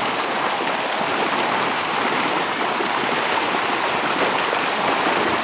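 Dense, continuous splashing of a mass of fish leaping and thrashing in shallow pond water at harvest, mixed with people wading through it; it sounds like heavy rain on water.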